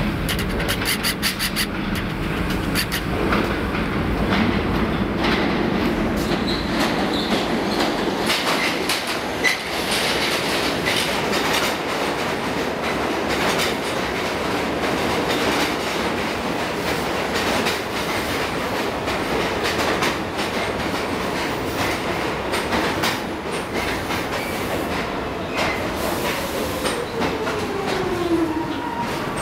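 Pullman Standard R46 subway train pulling into the station: wheels clacking over rail joints as the cars roll past, then slowing to a stop with a whine that falls in pitch near the end.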